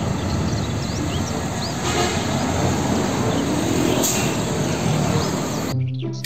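Road traffic: the diesel engine of an Isuzu car-carrier truck loaded with cars, with passing cars and motorbikes, a steady rumble with tyre noise. It cuts off shortly before the end.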